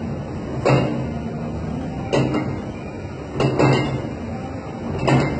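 Metal clanks from a plate-loaded gym lever machine as its weighted arm is worked through repetitions: four clanks about a second and a half apart, one of them a quick double clank, each ringing briefly, over a steady low hum.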